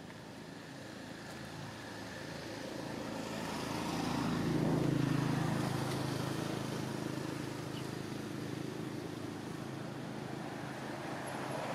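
A motor vehicle's engine humming steadily, growing louder to a peak about five seconds in and then fading.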